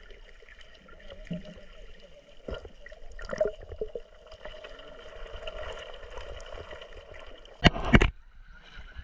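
Muffled underwater sound picked up by a camera held below the surface: a steady faint hum with scattered clicks and knocks. Near the end comes a loud splash as the camera lifts out of the water.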